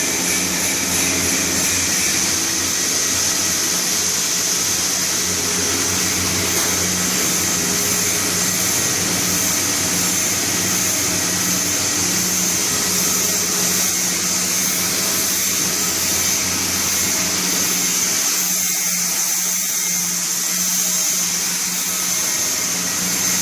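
Steady mechanical noise of a welding workshop: an even hiss with a constant low hum. The lowest part of the hum drops away about eighteen seconds in.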